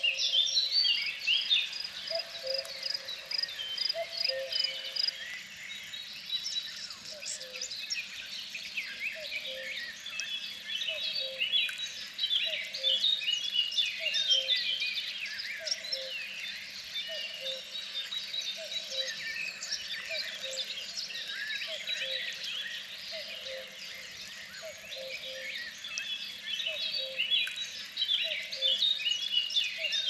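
A spring chorus of many small songbirds: dense overlapping chirps, trills and repeated high notes. Under it, a lower two-note call repeats about once a second.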